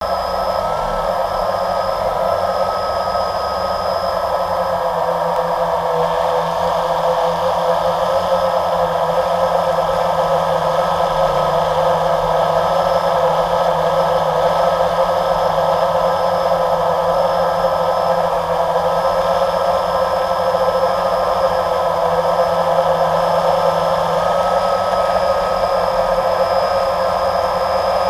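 Multirotor drone's electric motors and propellers whirring steadily, heard up close from the camera on board.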